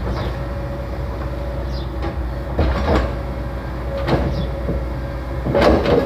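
Maintenance-of-way train of gondolas loaded with railroad ties rolling slowly past: a steady rumble and hum, with a loud clunk about every second and a half and a brief high squeal near the start.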